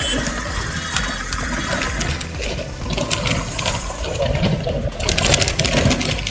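Wind rushing and buffeting over the microphone of a motorcycle riding at speed, with road noise underneath.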